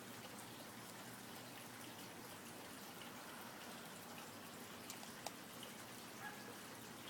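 Faint steady background hiss with a few soft clicks about five seconds in.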